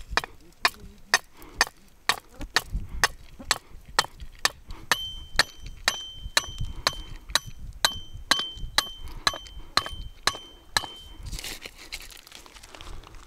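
A metal stake being driven into stony ground by striking it with a rock, in steady blows about two a second. Midway the stake rings with a clear metallic tone after each blow. The strikes stop about eleven seconds in, and stones crunch underfoot.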